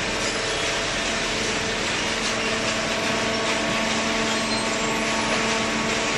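Hydraulic cardboard baler running: a steady machine hum and whine from its pump and motor over a constant hiss, without change.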